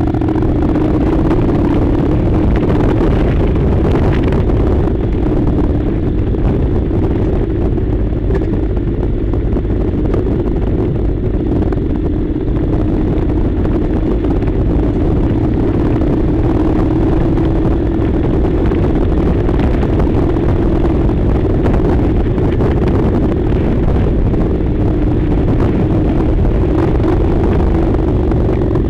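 Honda NC700's parallel-twin engine running at a fairly steady speed under way, over a constant low rumble of wind on the microphone.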